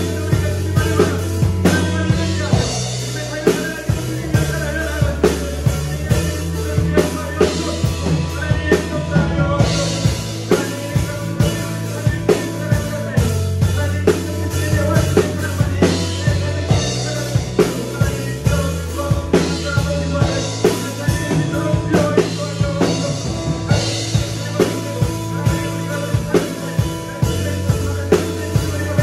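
An acoustic drum kit with Meinl cymbals played to a steady beat of kick, snare and cymbals, along with a recorded worship song whose bass line moves underneath.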